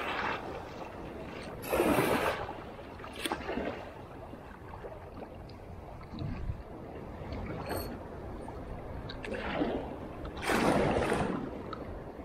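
Small sea waves washing and gurgling against the rocks of a groyne, rising in surges every few seconds, the strongest about two seconds in and again near the end.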